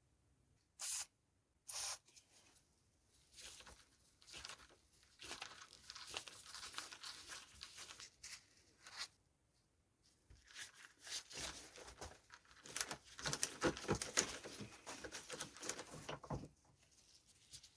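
Two short hissing bursts, then long spells of irregular, scratchy hand rubbing, typical of scrubbing or scraping grime and rust off the parts of an old metal vise.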